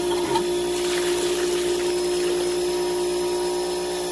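Blower running steadily with a constant whine and hiss, forcing air down the skimmer line so that pink antifreeze and water surge and churn up into the pool pump's open strainer housing.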